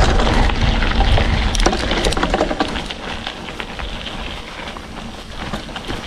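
Mountain bike rolling over a rough, potholed dirt road: tyres crunching on gravel with scattered clicks and rattles from the bike. It is louder in the first half and eases off about halfway through.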